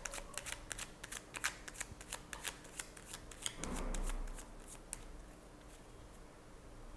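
A deck of tarot cards being shuffled by hand: a quick run of crisp card flicks and slaps, with a fuller rustle near four seconds, stopping about five seconds in.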